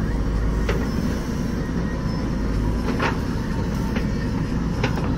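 Diesel engines of a JCB 3DX backhoe loader and tractors running steadily while the backhoe digs, with a few sharp metallic clanks.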